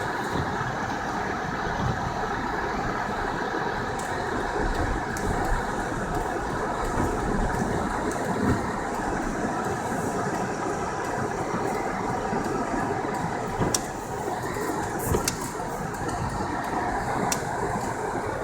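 Car driving through a snowstorm: a steady rumble of tyres, engine and wind noise, with a few sharp clicks along the way.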